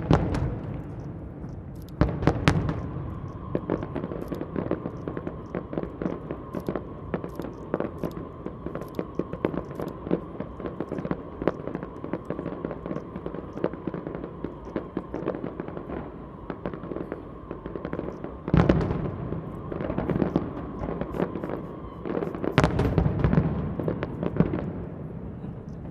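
Aerial fireworks display: rapid, continuous crackling and popping of shell bursts, with heavier booms at the start, about two seconds in, and twice more near the end.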